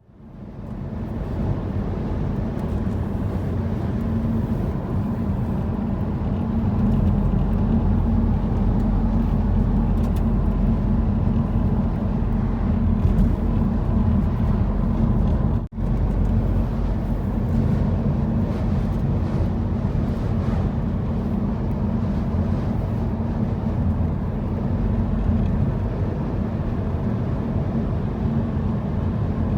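A car driving with a steady low rumble of engine and road noise, which breaks off for an instant about halfway through.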